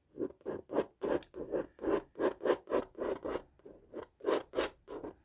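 Palette knife scraping oil paint across a stretched canvas in quick, short strokes, about three a second.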